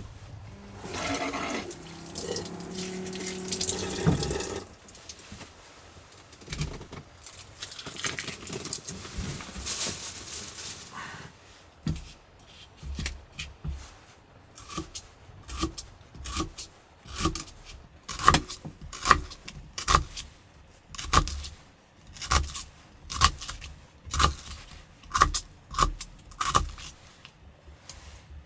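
Water running and filling a container, with the pitch of the fill showing in the first few seconds, then more running water. After that comes a long series of sharp knocks, each with a low thud, about one to two a second and steadiest near the end.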